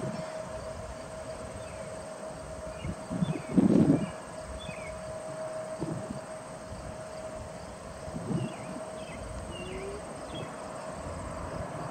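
Low rumble of a distant twin-engine jet airliner climbing out after takeoff, under a steady insect drone, with small birds chirping several times. A loud, short burst of low noise comes about three and a half seconds in.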